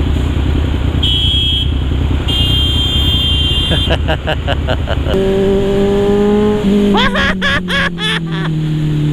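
Motorcycle riding through city traffic: a low rumble of engine and wind, with a few short high whistle-like tones in the first few seconds. From about halfway, a steady humming tone sets in and slowly slides lower in pitch.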